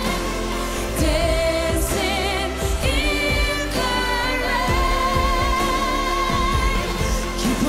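A woman singing long held notes with vibrato over the full backing of a pop ballad, performed live.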